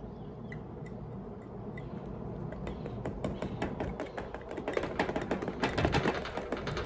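Hand tobacco grinder being worked and scraped to get the ground pipe tobacco out of its teeth: a run of light clicks and rasps that grows busier about three seconds in.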